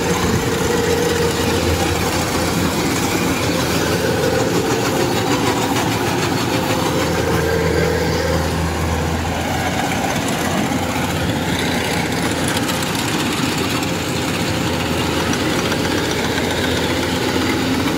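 2021 Kubota DC-105X rice combine harvester running steadily under load as it cuts standing rice, its diesel engine and threshing machinery going with an even drone.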